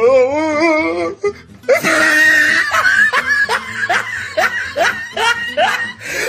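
Laughter over background music: a wavering laugh at first, then a run of short rising laughs about two a second.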